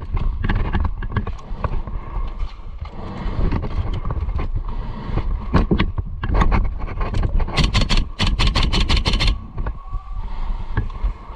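Airsoft gun firing a rapid burst of about eight shots a second for nearly two seconds, about seven and a half seconds in. Scattered sharp clicks and a constant low rumble run under it.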